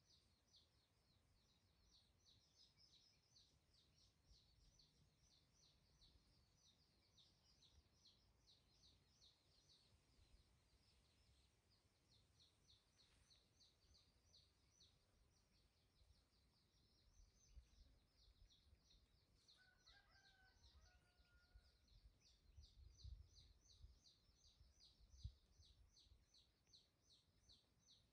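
Faint background chirping: a steady train of rapid, high-pitched chirps, several a second, with a brief lower call about two-thirds of the way through and a few soft low thumps near the end.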